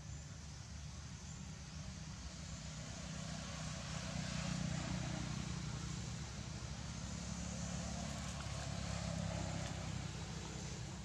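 A motor vehicle's engine droning steadily, growing louder about four seconds in and easing off again near the end.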